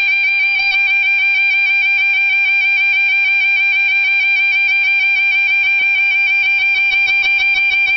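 A level crossing's audible warning alarm: one high, steady warbling tone that sounds continuously while the crossing is closed for an approaching train.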